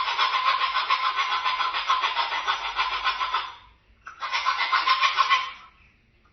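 A cockatoo making long, harsh, rattling calls: one fades out about three and a half seconds in, and a shorter one follows about a second later.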